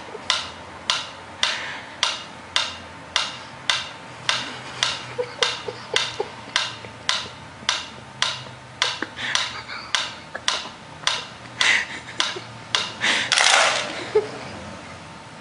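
Mechanical pendulum metronome ticking steadily, a little under two ticks a second. Near the end a louder clatter as the metronome is knocked over, and the ticking stops.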